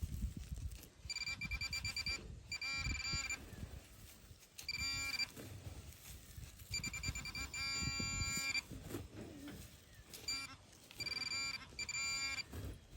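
Metal detector sounding its buzzing electronic target tone in a series of short bursts, with a longer burst about seven seconds in, over soft scraping and thumping from digging in soil.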